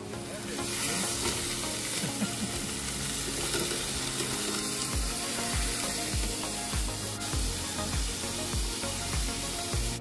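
Two New York strip steaks sizzling steadily in a frying pan, with a fork turning them. Background music with a steady bass beat comes in about halfway through.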